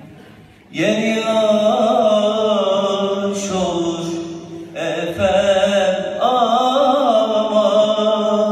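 Male voice singing a long, ornamented zeybek folk melody with a wavering pitch over a steady low drone, in long phrases broken by brief pauses.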